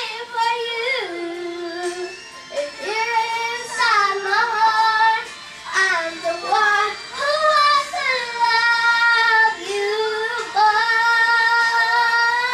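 A young girl singing a song into a handheld microphone, the melody moving between short phrases and long held notes.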